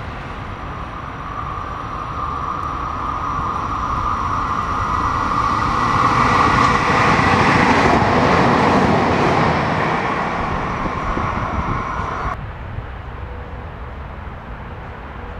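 Regional passenger train running through the station, growing louder as it approaches and passes close by, with a steady whine over the rumble. The sound drops away abruptly about three-quarters of the way through, leaving a quieter background.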